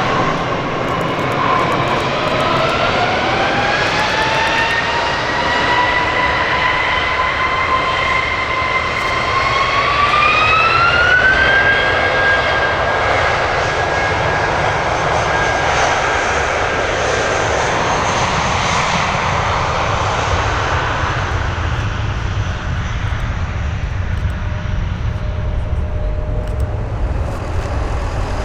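Jet airliner engines spooling up: a multi-toned whine climbs in pitch over about ten seconds and then holds steady, giving way to a deep rumble in the last third.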